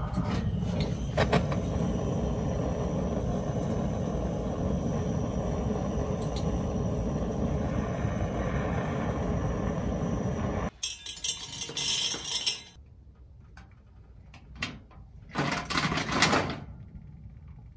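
Handheld butane canister torch running with a steady rushing flame, with a few clicks near the start. About ten seconds in it stops abruptly, and the fire inside a small stainless-steel camp stove crackles, with two spells of sharp pops.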